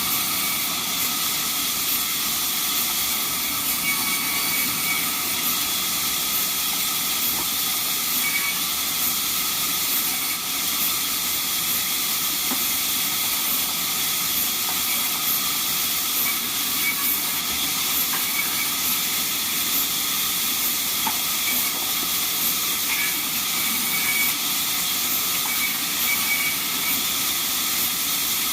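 Sawmill band saw machinery running with a steady, unbroken hiss.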